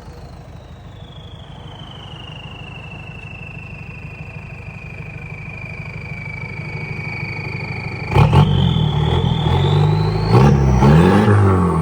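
Turbocharged engine idling while the turbo's whistle slowly falls in pitch as it winds down. About eight seconds in the engine is revved sharply, and the whistle climbs again with a few more throttle blips near the end.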